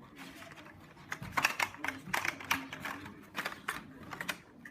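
Irregular rapid clicks and taps of hard plastic being handled, densest in the middle, with a faint voice underneath.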